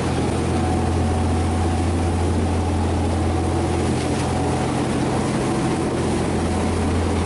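A charter fishing boat's engine running with a steady low drone and no change in pitch.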